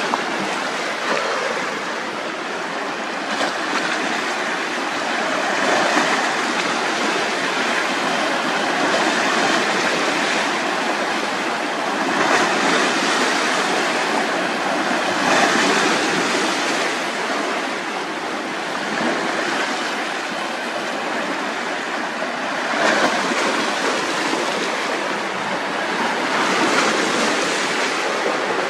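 Lake waves washing onto the shore: a continuous rushing wash that swells every three or four seconds as each wave breaks.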